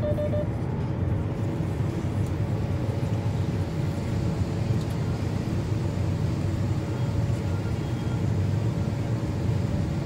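John Deere S780 combine running steadily, heard from inside the cab, a constant low drone with a faint steady whine, while the unloading auger empties soybeans into a grain trailer.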